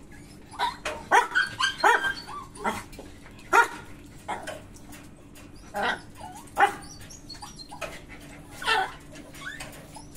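Dogs barking in short, sharp single barks: a quick run of them in the first two seconds, then one every second or two. A faint steady low hum runs underneath.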